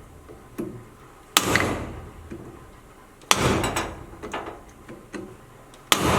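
Hammer blows on a chisel driven into the steel sleeve of an old leaf spring bushing: three hard strikes about two seconds apart, each ringing briefly, with lighter taps between. The chisel is folding the sleeve in on itself so it can be driven out of the spring eye.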